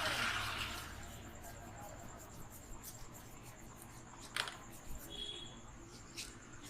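Hands rubbing the hair and scalp during a head massage: a rustling swell in the first second, then two sharp clicks about two seconds apart. A steady high-pitched chirring runs underneath.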